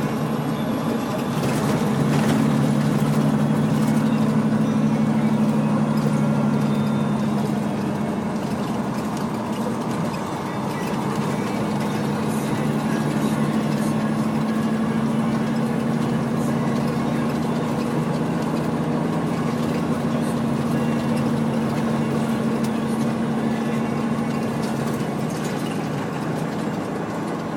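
Diesel engine of a highway semi-truck pulling down the road, a steady drone heard from inside the cab with road noise. It gets louder about two seconds in and drops off briefly around ten seconds in before settling back to a steady pull.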